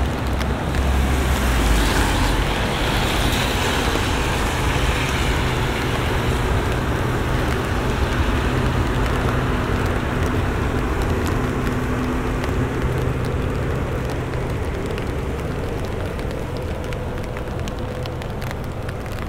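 A motor vehicle passing on a wet street in the rain: its tyre hiss swells about two to four seconds in and slowly fades, over a low engine hum that dies away near the end, with steady rain throughout.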